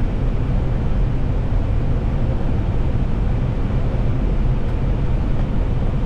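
Steady rumble and rush of air and engines inside an Airbus airliner's cockpit on final approach, with a faint steady hum over it.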